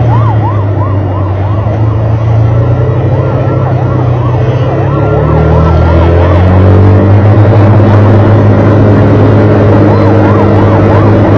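Emergency vehicle siren in a fast yelp, its pitch rising and falling about twice a second, over a loud steady low engine drone. The siren fades about halfway through and comes back briefly near the end, while the drone grows louder.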